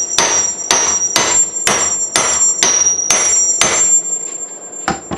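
Hammer striking a homemade steel anvil about twice a second. Each blow leaves a high, bright ring that carries on between strikes. The strikes stop after about four seconds, and near the end a last knock cuts the ringing off.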